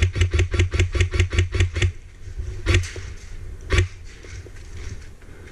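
Airsoft gun firing a fast burst of about eight shots a second for roughly two seconds, then two single shots about a second apart.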